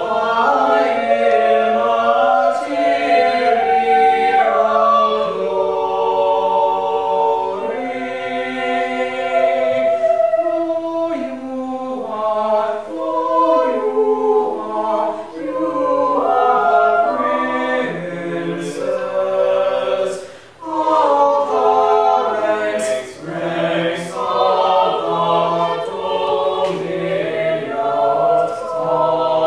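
Small mixed vocal ensemble of men and women singing a cappella in harmony, holding chords that move in steps from one to the next, with a brief break about twenty seconds in.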